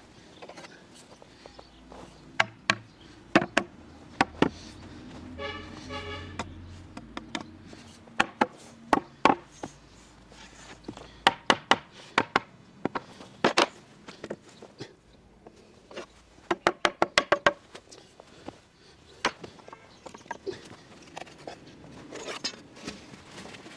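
Small hammer knocking the mortise-and-tenon joints of an elm frame home: sharp, irregular taps in ones, pairs and short clusters, with a quick run of about six taps about two-thirds of the way through. A brief pitched squeak comes about a quarter of the way in.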